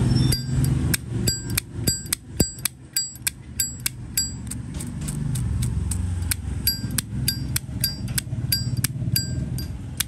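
Zippo lighter lid flicked open and snapped shut over and over, a run of crisp metallic clicks about three a second, many of them ringing briefly with the lighter's clink.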